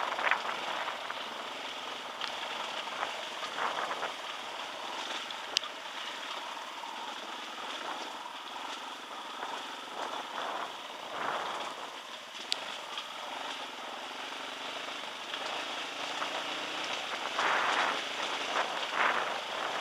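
Dirt bike riding down a wet dirt trail: a steady rushing noise of wind and tyres on the trail, with no clear engine note, and two sharp clicks, one about a third of the way in and one past the middle.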